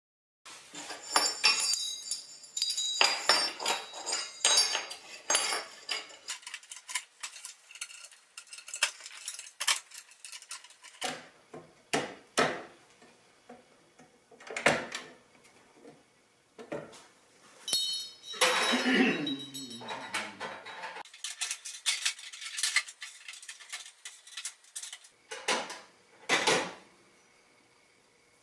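Metal clinking and rattling as a homemade pot-simmering support, short metal tubes strung on a wire ring, is handled and set onto a propane camp stove's metal grate. There are many light clinks and knocks, with a longer scrape about two-thirds of the way through.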